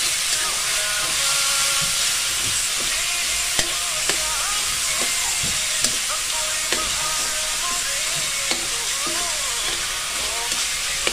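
Ground meat, tomato and onion sizzling in a steel wok as they are stir-fried, with a metal spatula scraping and clicking against the pan every second or so.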